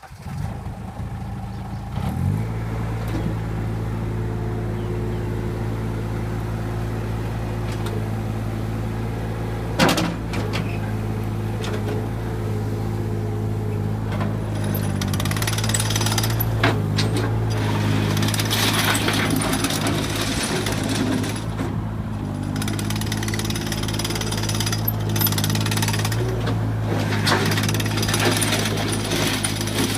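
Terex PT30 compact track loader's diesel engine running, throttled up about two seconds in and then held steady at high revs while the machine drives on its tracks. Sharp clanks at about ten and sixteen seconds, and more track and undercarriage rattle from about fifteen seconds on.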